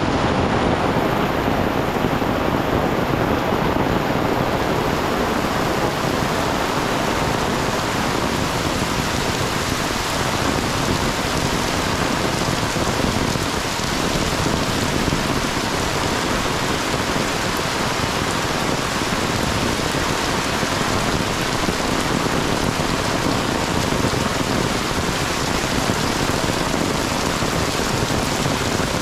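Heavy rain pouring steadily onto trees, leaves and a village lane: an even, unbroken hiss of rainfall.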